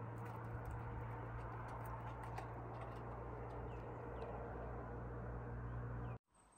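Steady low hum over a background of even noise, with a few faint bird chirps; it cuts off suddenly about six seconds in.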